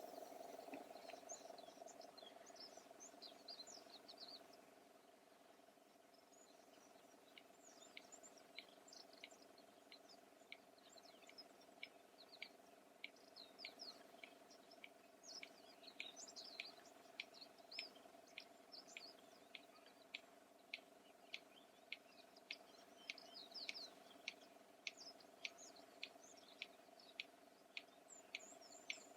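Red-crested bustard giving its series of sharp clicks, about two a second, starting some seconds in and becoming steadier and more prominent through the second half; the clicks are said to be made by snapping the bill and serve for contact and courtship. Other small birds chirp in the background.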